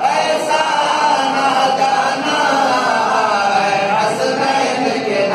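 A man singing a devotional Urdu naat into a microphone, drawing out long, wavering melodic lines without a break.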